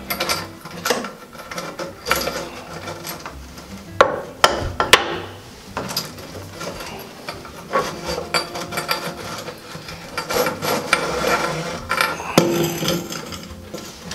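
Chrome faucet and its braided steel supply hoses being fed down through the mounting hole in a countertop and set in place. Irregular clicks, knocks and rubbing of metal against the counter, loudest about four to five seconds in.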